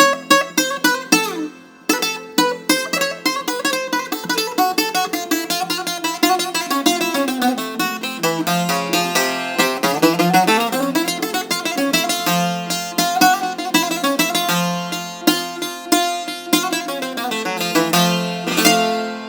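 Solo bouzouki playing a taximi improvisation: fast runs of picked single notes over a ringing drone. There is a brief pause about two seconds in, and the piece closes with a strummed chord that rings out.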